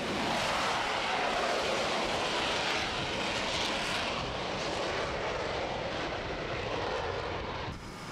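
F/A-18 fighter's twin jet engines at full power as it launches off the carrier deck and climbs away: a loud, steady rush of jet noise that drops off a little near the end.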